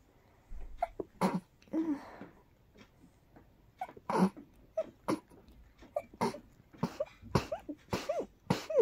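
A person sneezing in a rapid string of short, sharp sneezes, some carrying a brief voiced 'ah'. There is a pause of about a second after the first few, then the sneezes come thick and fast to the end.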